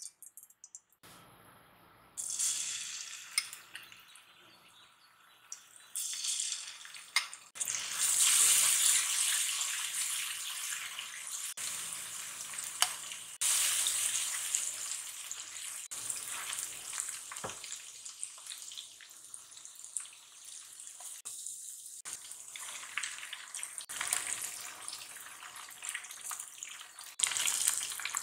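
Kitchen cooking sounds in a string of short clips that start and stop abruptly, mostly a steady hiss such as running water or food frying in a pan.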